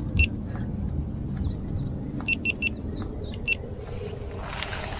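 Short electronic beeps from a chest-mounted action camera as its buttons are pressed: one beep, then a quick run of three, then one more, over a steady low rumble.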